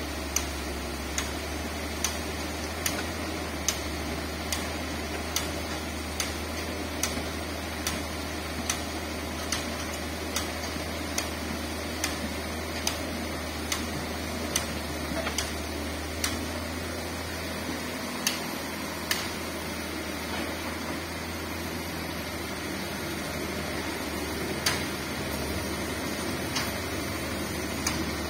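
Komatsu hydraulic excavator's diesel engine running with a steady low drone while it loads sand into a dump truck, with a sharp tick a little more than once a second throughout.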